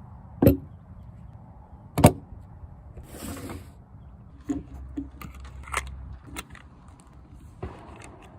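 Winchester Model 1890 pump-action .22 rifle being handled: two loud sharp clacks about a second and a half apart, a short sliding rasp, then a run of lighter metallic clicks.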